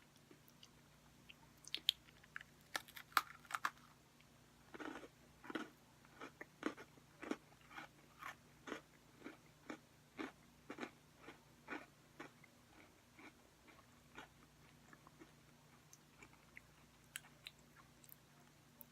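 Crunching and chewing of a Cherry Cola Oreo cookie with popping candy in its cream: a few sharp crunches in the first few seconds, then steady chewing at about two chews a second that thins out toward the end.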